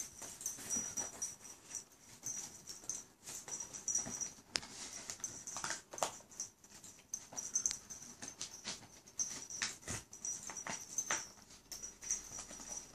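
Pomchi puppy chewing and tearing a piece of cardboard: a run of irregular crackles, crunches and small rips.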